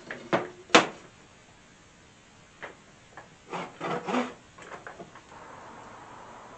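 Workshop handling sounds: sharp knocks and short scrapes of tools and metal or wooden parts being picked up and set down on a bench, two loud knocks in the first second and a cluster about three and a half to four seconds in. A steady faint hiss follows.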